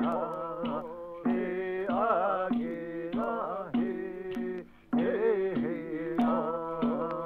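Background music: a wavering, ornamented melody over a low note repeated in a steady pulse.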